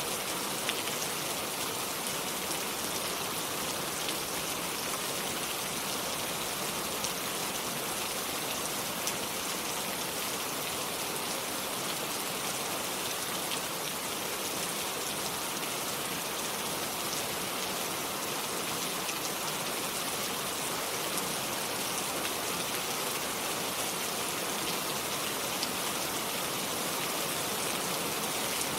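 Steady rain falling without thunder, an even hiss with many small drop ticks.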